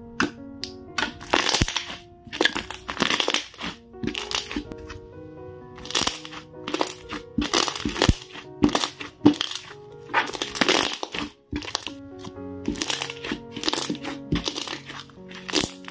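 Thick slime being squeezed and poked by hand, giving a series of short, loud crackling squishes at irregular intervals over steady background music.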